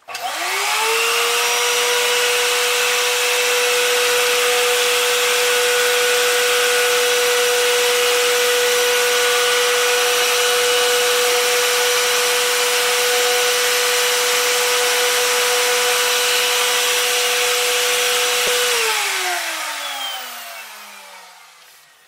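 Vacuum cleaner switched on, its motor quickly rising to a steady high whine over a loud rush of air as the hose sucks debris out of an electrical box. Near the end it is switched off, and the whine falls in pitch and fades as the motor spins down.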